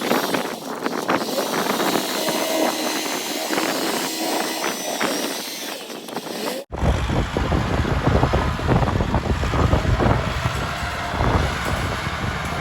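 Kubota tractor's diesel engine running steadily at work, with wind on the microphone. About two-thirds through the sound cuts abruptly to a deeper, heavier-sounding stretch of the same kind of engine noise.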